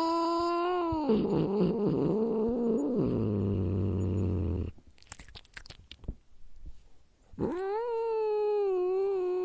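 Domestic cat growling and yowling: a long drawn-out yowl ends about a second in and breaks into a rough growl that sinks to a low rumbling growl. After a quieter gap with a few short faint clicks, another long yowl starts near the end.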